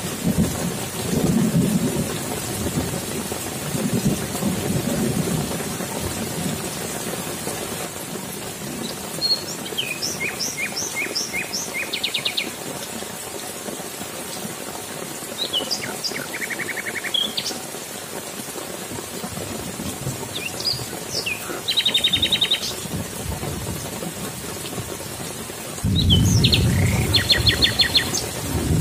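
Steady rain hissing, with low thunder rumbling in the first few seconds and a louder rumble breaking in about three seconds before the end. From about nine seconds in, a bird calls four times, each call a short run of quick repeated chirps.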